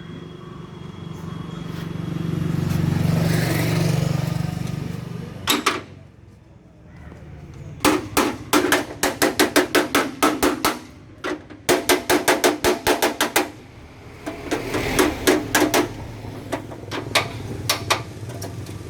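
Hammer beating on a tractor's sheet-metal mudguard: one blow, then quick runs of ringing strikes about four or five a second, broken by short pauses. Before the hammering, a low rumble swells and fades.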